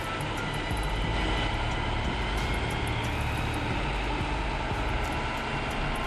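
Bruks 1004 CT mobile wood chipper running: a steady engine and machinery drone.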